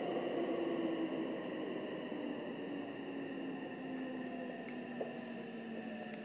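Tokyo Metro 9000-series train with a Toshiba IGBT-VVVF inverter, heard from inside a car as it slows: a low motor tone falls steadily in pitch while the running noise fades.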